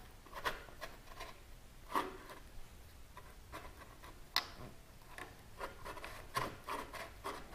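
Scattered light clicks and rubbing of a Two Brothers slip-on muffler being slid and turned on an M4 mid pipe, metal on metal, with a sharper knock about two seconds in and another near the middle.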